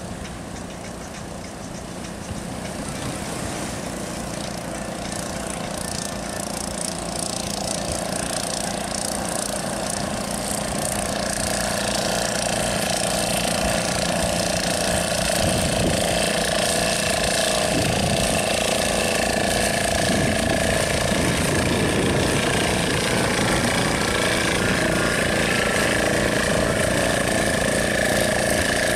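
Outboard motors of small fishing boats running, growing steadily louder as the boats come near, over the rush of breaking surf.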